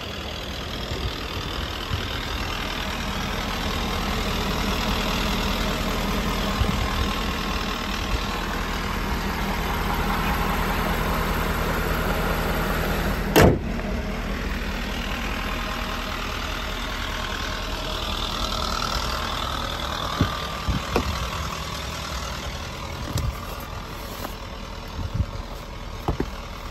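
Ford 6.7 Power Stroke V8 turbodiesel idling steadily, with a single loud bang about halfway through as the truck's hood is shut. Near the end come a few light knocks and paper rustling.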